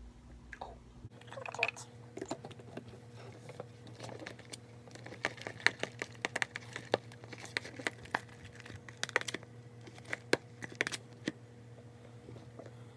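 Slime mixture of glue, water and Tide detergent being stirred in a bowl: irregular sharp clicks and sticky, crackly handling noise that thin out near the end.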